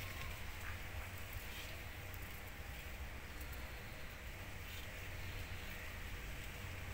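Quiet background: a faint steady low hum under light hiss, with no distinct sound event.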